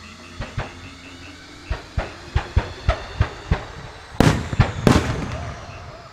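Aerial fireworks shells bursting in a string of sharp bangs, irregularly spaced. The loudest bursts come close together near the end, followed by a fading crackle.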